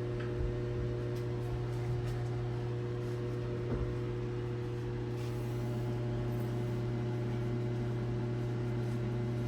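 Background music between strums: a held chord slowly dying away over a steady low hum.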